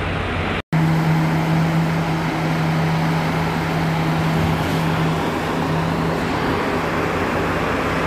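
An engine running steadily, a constant hum over a wash of noise. The sound cuts out for a split second near the start and then goes on unchanged.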